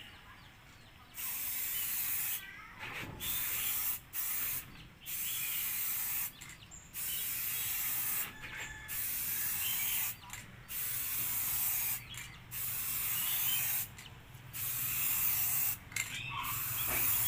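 Aerosol spray-paint can hissing in about a dozen short bursts, each roughly a second long, with brief pauses between them.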